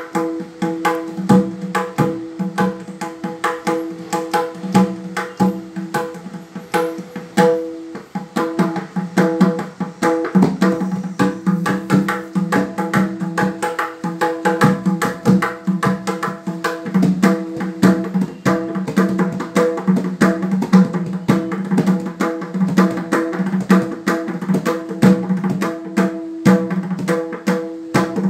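Pakhawaj being played by hand in a fast, continuous rhythm of strokes, its treble head freshly fitted with new syahi and ringing at a clear, steady pitch, with a lower tone coming and going underneath.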